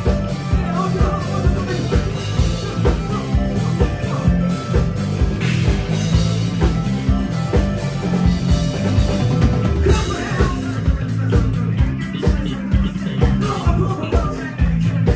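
Rock band playing live: drums with a steady kick-drum beat, electric bass, electric guitar and a singer's vocals, heard through the venue's PA.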